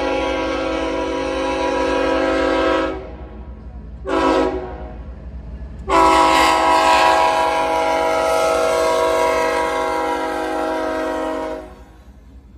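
Union Pacific diesel locomotive's air horn sounding a chord in the grade-crossing warning pattern: a long blast ends about three seconds in, a short blast follows about a second later, then a long blast of about six seconds stops shortly before the end. A low, steady train rumble runs underneath.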